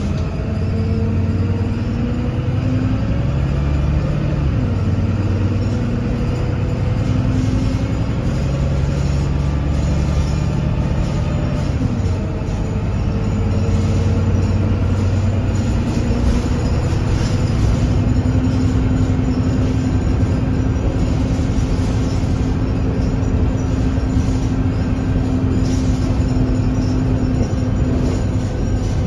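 Alexander Dennis Enviro200 Dart single-deck bus on the move, heard from inside the passenger cabin: its diesel engine and Voith automatic gearbox run continuously under road noise. The engine note rises and falls as the bus changes speed, then holds steadier in the second half.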